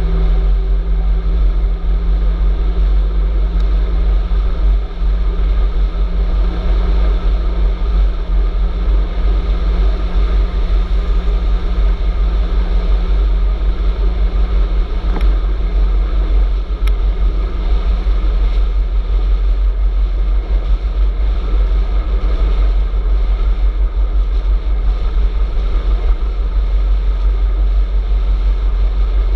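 Steady wind rush and rumble on the camera microphone of an e-bike riding at speed on a paved road, with tyre and road noise and a faint low hum.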